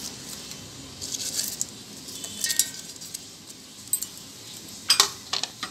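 Dry whole spices rustling and clinking against a steel mixer-grinder jar as a hand moves them about, with a few sharper clicks near the end.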